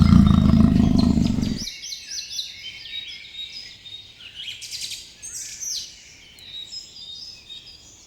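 Many small birds chirping and twittering together, quick overlapping high calls. At the start a loud, deep animal roar is still sounding and cuts off about a second and a half in.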